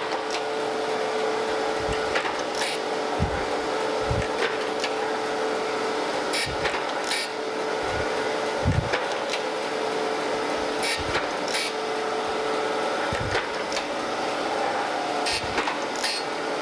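Landis surface grinder running, with its table traversing back and forth at high speed: a steady hum and whine, broken by a short knock every second or two as the table reverses. This is the first pass over a rough straight-edge casting, with the wheel just touching the high spots near the end.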